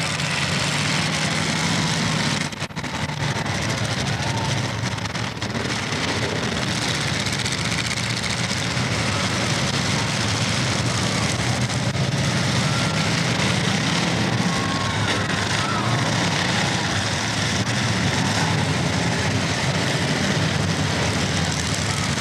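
Several demolition derby cars' engines running together in a steady, dense din, with a brief drop in loudness about three seconds in.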